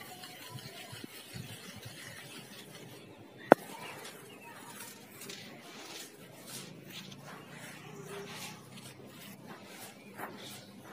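Clumps of dry red sand crumbling in the hands and sifting down onto loose sand: a soft, gritty rustling made of many short scrapes. One sharp click stands out about three and a half seconds in.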